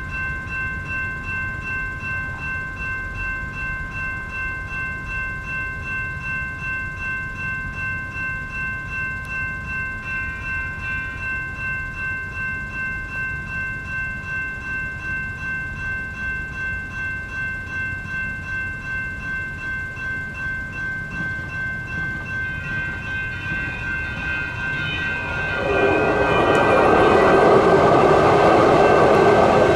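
Railroad crossing warning bells ringing in a fast, even rhythm. About 26 seconds in, a Sacramento Regional Transit light rail train passes through the crossing, and its loud rolling rumble swells over the bells.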